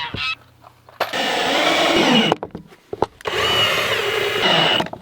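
Electric power sander running on wood in two bursts of about a second and a half each, stopping briefly between them, its motor pitch wavering as it is pressed on the surface.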